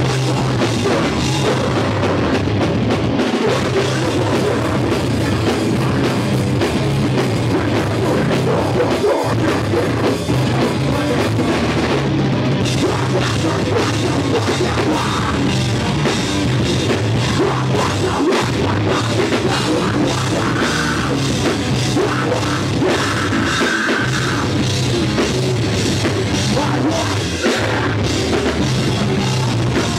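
A heavy rock band playing live and loud, with distorted electric guitar and a drum kit with cymbals.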